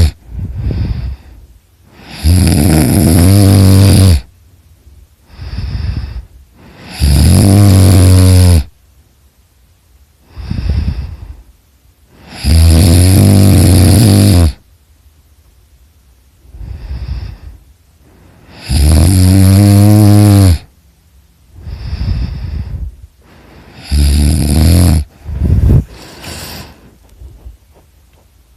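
A person snoring loudly in a steady cycle. About every five to six seconds comes a loud, pitched snore lasting about two seconds, followed by a shorter, quieter breath. Near the end the rhythm breaks into a couple of shorter, broken snores.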